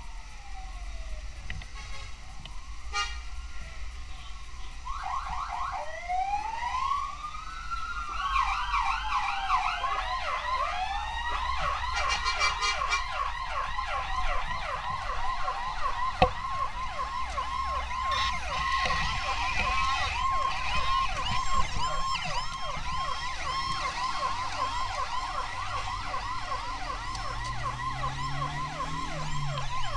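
Several emergency-vehicle sirens sounding at once: slow rising-and-falling wails at first, then from about eight seconds many fast yelping sweeps overlapping over a steady tone.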